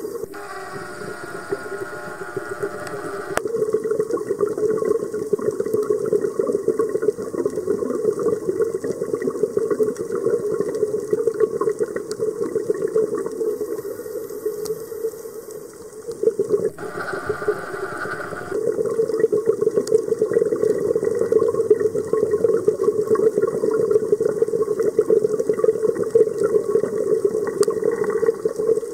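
A scuba diver's regulator breathing, heard underwater: long streams of exhaled bubbles, broken twice by the hissing, faintly whistling draw of an inhaled breath, near the start and again about two-thirds of the way in.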